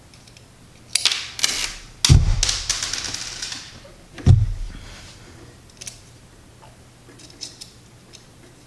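Small metal hardware being handled on a table: a rattle about a second in, a sharp knock with a rattle running on after it about two seconds in, a second knock about four seconds in, then light scattered ticks.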